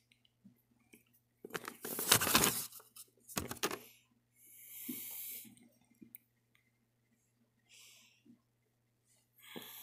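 Close rustling and knocking of hands handling objects next to the phone's microphone, with a short breathy hiss about five seconds in, over a faint steady low hum.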